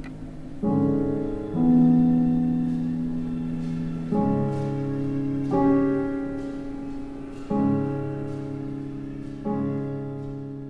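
Background music: slow piano chords, each held for one to two seconds before the next is struck.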